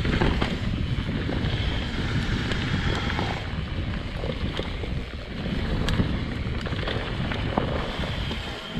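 Wind buffeting the microphone of a mountain bike descending fast down a dirt downhill trail, with the rumble of the bike over the ground and a couple of sharp knocks.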